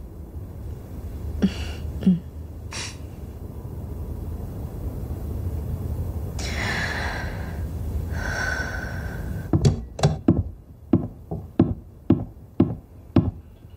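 Footsteps on a hard floor, a steady walking pace of about two steps a second, beginning about two-thirds of the way in. Before them, a low drone with two breathy hissing swells.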